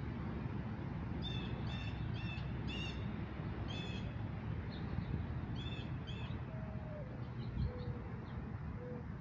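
A bird chirping in short, high notes, five in quick succession from about a second in and two more near six seconds, over a steady low outdoor rumble. A few soft, lower whistled notes follow near the end.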